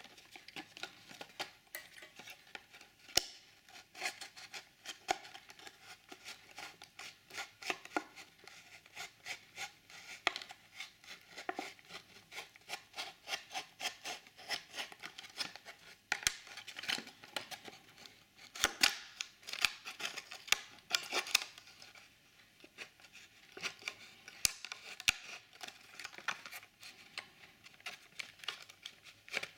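Cardboard blister card and clear plastic blister of a toy car package being handled and picked at by fingers: dense crinkling, scratching and clicking of plastic against card, with a run of louder clicks about two-thirds of the way through.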